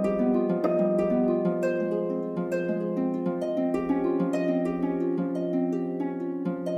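Instrumental background music: a quick, even stream of plucked-string notes over a held low note.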